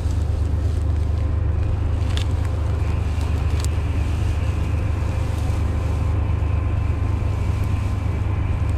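Steady low outdoor rumble, with a few faint clicks and a thin high steady tone that comes in about three seconds in.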